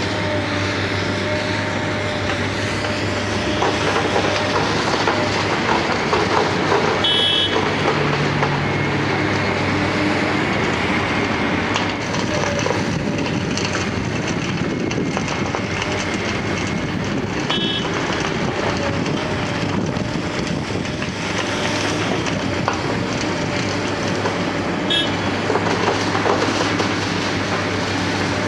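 Wirtgen W210 cold milling machine running under load, its drum grinding off the asphalt in a steady, dense clatter over the hum of its 680 hp diesel. Short high beeps sound three times.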